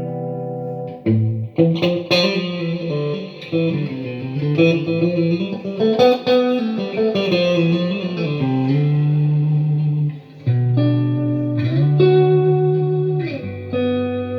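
Xotic XSC-1 electric guitar played through an amp: a held chord rings out, then a phrase of picked single notes with string bends, then longer sustained notes that change pitch a few times.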